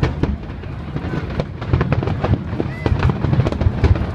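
Fireworks display: rapid, overlapping bangs and crackling of many aerial shells bursting at once, with no gap between reports.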